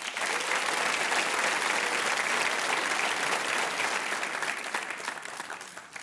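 Audience applause: many hands clapping steadily, easing off near the end.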